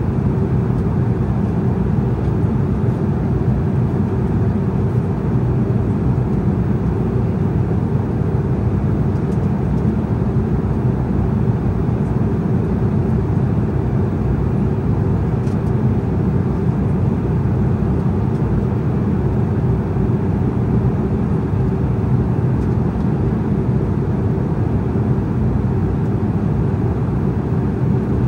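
Embraer E190 airliner in flight, heard inside the cabin at a window seat: the steady, deep rush of its twin turbofan engines and the airflow over the fuselage, with a faint even hum.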